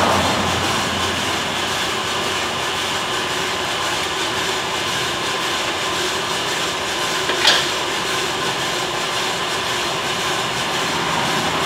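Bideli 2KG propane gas drum coffee roaster running mid-roast: a steady, loud noise of the turning drum, airflow fan and gas burner with the coffee beans tumbling inside. One short click a little past halfway.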